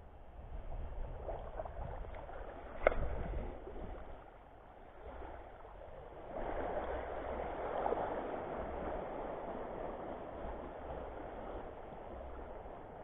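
Shallow seawater lapping and sloshing at the shore, with wind rumbling on the microphone and one sharp knock about three seconds in; the water noise grows louder about six seconds in.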